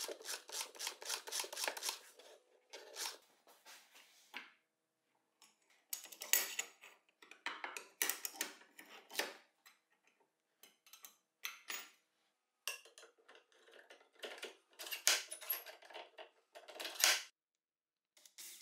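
Light metallic clicking and clinking of small aluminium and steel parts being handled and fitted. A quick, even run of ticks, about five a second, lasts for the first two seconds, then scattered clicks and clinks follow with pauses between them.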